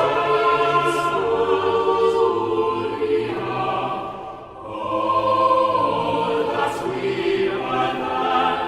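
A choir singing slow, long-held chords as background music, with a brief lull between phrases about halfway through.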